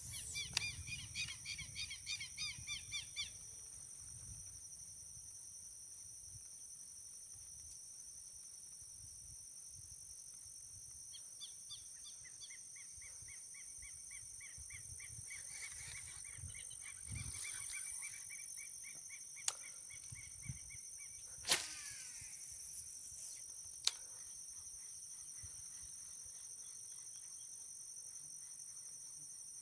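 Rural ambience: a steady, high-pitched insect drone throughout, with a quick series of bird chirps at the start and a longer run of repeated chirps midway. A few sharp clicks come around twenty seconds in, the loudest at about twenty-one seconds.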